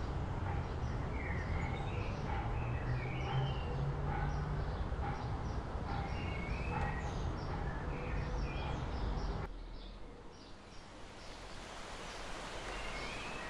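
Several small birds chirping over a steady low rumble of city noise. About nine and a half seconds in, the rumble cuts off abruptly, leaving a quieter hiss with the birds still chirping.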